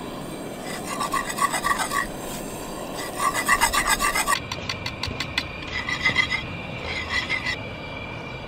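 A wire whisk beating cake batter in a stainless steel skillet, the wires scraping and rasping against the metal in bursts of quick strokes with short pauses between them.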